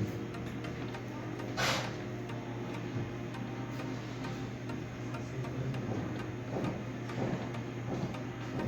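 Desktop computer running while it boots from its hard disk: a steady low hum with faint regular ticking, and a short hiss about two seconds in.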